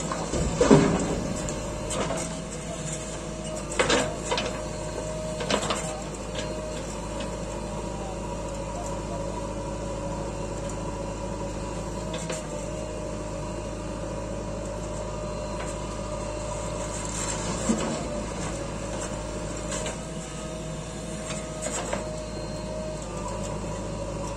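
JCB 3DX Eco backhoe loader's diesel engine running steadily under hydraulic load as the backhoe works soil. There is a loud clattering hit about a second in as a bucketload of soil drops into the steel tipper bed, more knocks a few seconds later, and another near the end as the bucket digs.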